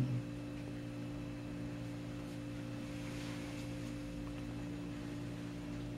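A steady low hum made of several even tones that hold without change.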